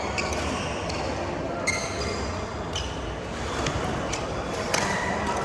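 Badminton rackets striking a shuttlecock during a rally: several sharp hits about a second or two apart, over steady background noise.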